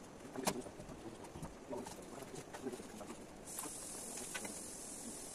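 Light, scattered knocks and clicks of bamboo poles and hand tools being handled, with a sharper click about half a second in. A steady high hiss starts abruptly about three and a half seconds in and runs for about two seconds.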